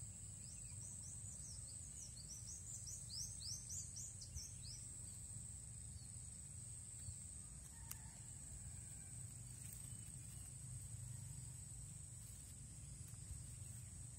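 Faint outdoor ambience: a steady, high-pitched insect drone, with a bird giving a rapid string of short falling chirps during the first few seconds, over a low rumble.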